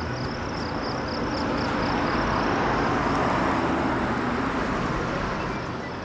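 Light box truck driving past on a dirt road: its engine and tyres swell to their loudest about halfway through, then fade as it moves away.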